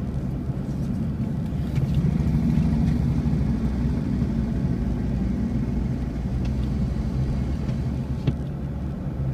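Car interior noise while driving slowly in traffic: a steady low engine and road rumble that swells a little about two seconds in, with a single faint click near the end.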